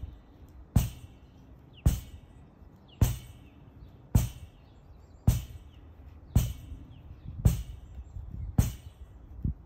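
A lacrosse ball smacking against a rebounder net in a steady rhythm during a wall-ball drill: nine sharp smacks, about one a second.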